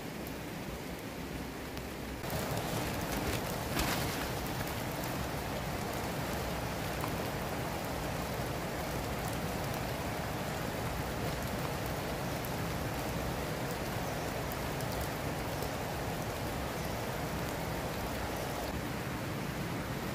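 Steady rain falling on leaves and vegetation: a constant hiss with scattered small drop ticks. It gets louder about two seconds in.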